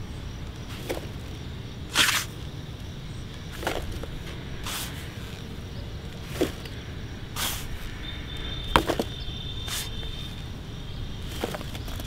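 Plastic toy shovels scraping and scooping loose soil, with dirt dropping into a plastic toy dump truck's bed: short scrapes and pattering every second or two, over a steady low background rumble.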